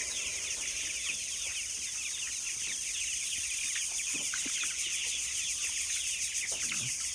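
A large flock of 28-day-old chickens peeping without pause, many short falling calls overlapping, with a few lower clucks about four and six and a half seconds in. A steady high hiss runs beneath.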